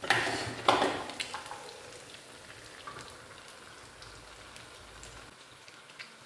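Breaded cutlets frying in a pan of hot oil, the oil crackling and sizzling steadily. Two louder hissing surges in the first second die away into the steady crackle.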